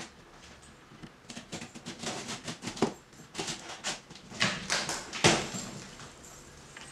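Cardboard box being opened: a run of short rustles and scrapes of cardboard and packing tape as the box top is worked open, the loudest stroke about two-thirds of the way through.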